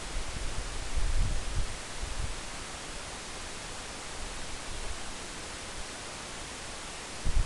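Wind buffeting the microphone over a steady hiss, with short low gusts of rumble about a second in and again near the end.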